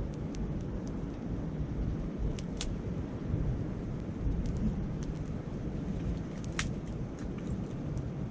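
Wood campfire crackling with scattered sharp pops, two louder ones about two and a half and six and a half seconds in, over a steady low rumble of wind and a flowing river.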